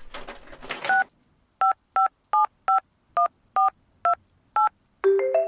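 Phone keypad dialing: a few soft taps, then nine short touch-tone beeps at uneven spacing as a number is dialed. About five seconds in, a phone ringtone starts, a chiming marimba-like melody.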